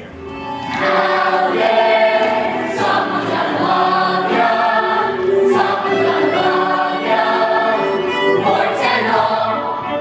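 Large cast of young performers singing together in chorus, a stage-musical ensemble number, rising to full volume within the first second.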